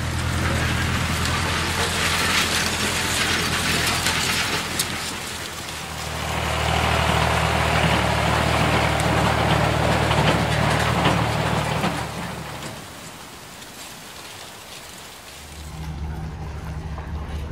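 Farm machinery engine running with a steady low hum and a haze of mechanical rattling and clatter, in two swells that fade away about two-thirds of the way through. After a short lull, a pickup truck's engine idles near the end.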